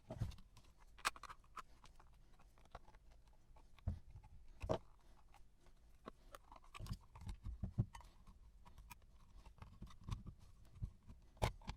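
Scattered small clicks, taps and knocks of tools and metal parts being handled while an old hard disk drive is taken apart, with a few louder knocks.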